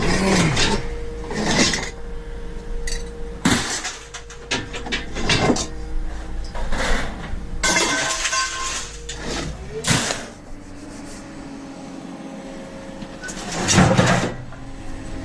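Scrap being broken apart and handled: irregular metal clanks and knocks with a glassy, breaking sound, about eight heavy strikes, the loudest near the end.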